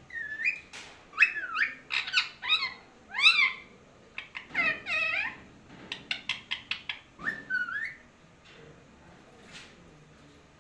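Pet parrot giving a rapid series of short, high whistling calls that slide up and down in pitch, with a quick run of clipped chirps near the middle. It falls quiet about eight seconds in.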